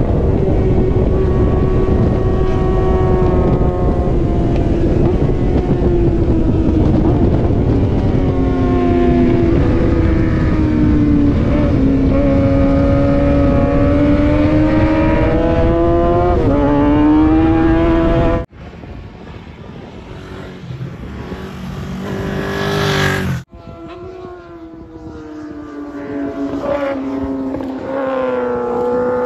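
Racing motorcycle engines running hard, their pitch climbing and dropping through gear changes over a loud low rumble. After an abrupt cut the sound is quieter, and engines accelerate with rising pitch, twice, each time cut off suddenly.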